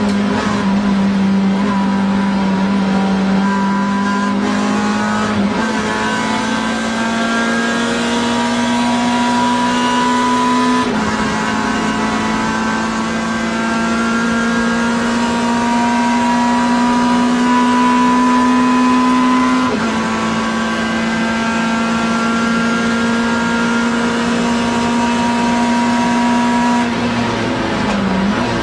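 Alfa Romeo 147 GTA race car's 3.2-litre V6 heard from inside the cabin under hard acceleration, its pitch climbing slowly through each gear with upshifts about five, eleven and twenty seconds in. Near the end the revs fall away and waver.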